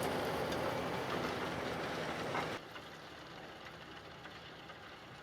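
CLAAS Axion 960 Terra Trac tractor's six-cylinder engine running under load, pulling a tine-and-disc cultivator across the field. About two and a half seconds in the sound drops sharply and carries on fainter.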